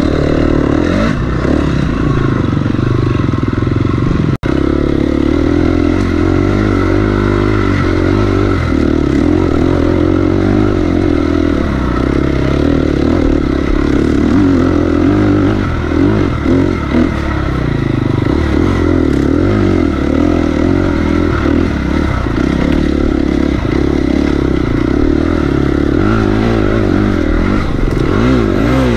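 KTM 250 XC-F's single-cylinder four-stroke engine running hard as the dirt bike is raced over rough ground, its pitch rising and falling with the throttle. There is a brief dropout about four seconds in.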